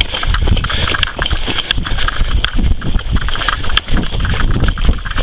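Hurried footsteps on the ground with gear thumping and clicking against a body-worn camera. A steady high buzz of evening insects runs underneath.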